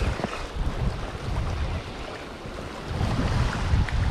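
Wind buffeting the microphone in a low, uneven rumble, with small waves washing against the shore.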